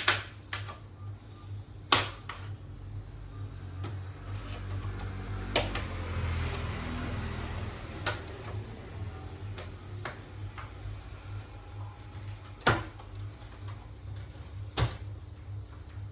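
Scattered sharp clicks and knocks from hands and tools working on a plastic computer case, with a stretch of rustling handling about four to eight seconds in, over a steady low hum.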